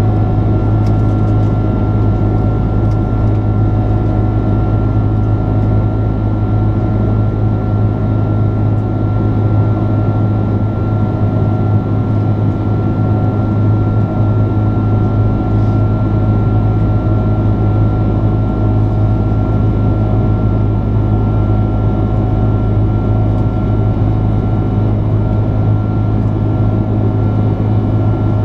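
Steady cabin drone of an Airbus A330-300 in flight, heard from a window seat: Rolls-Royce Trent 700 engine noise and airflow, with a strong low hum and a few fixed tones above it.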